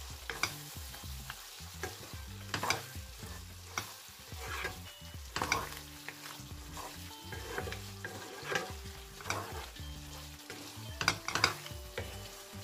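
Wooden spatula stirring chicken curry in a nonstick frying pan, with irregular scrapes and knocks against the pan over the steady sizzle of the frying masala.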